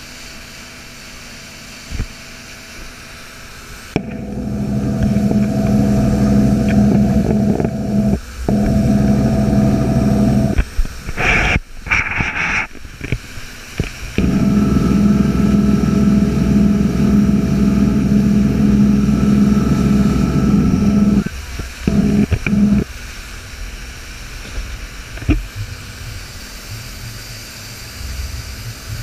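Motorboat engine running under way, a steady droning hum over rushing water and wind on the microphone. The drone comes up loud about four seconds in, breaks up for a few seconds around the middle, then holds again before dropping back after about twenty-one seconds.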